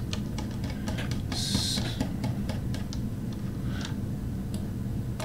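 Computer mouse clicks and scroll-wheel ticks, a scatter of small irregular clicks, with a short hiss about a second and a half in, over faint room hum.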